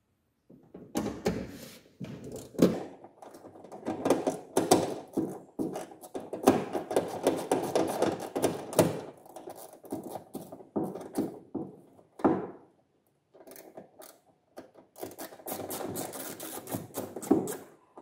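Hand screwdriver turning out screws from a plastic front wheel-arch liner: bursts of rapid clicking and scraping of tool on plastic, with a few short pauses.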